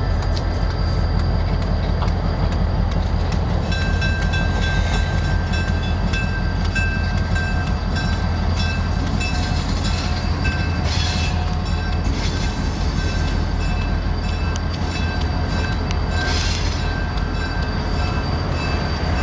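Nickel Plate Road 901 diesel locomotive running as it rolls slowly away along the track: a steady low rumble. Faint high squealing tones join in about four seconds in, with a couple of short hisses later.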